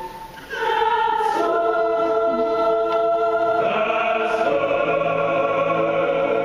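A choir singing held chords, the harmony moving to new chords a few times.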